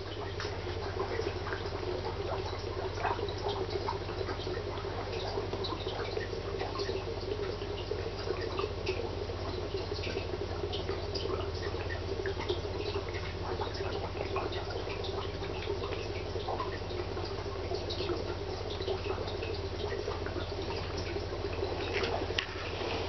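Steady bubbling and trickling of aquarium water, with many small drip-like pops over a low steady hum. There is a brief dip near the end.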